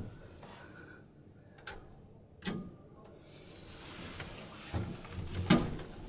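Scattered clicks and knocks in a vintage elevator car, from its door and controls. These are followed by a rising rushing noise with a couple of thumps near the end.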